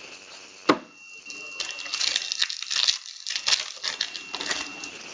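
A sharp knock, then the foil wrapper of a hockey trading-card pack crinkling and tearing for a few seconds as it is opened.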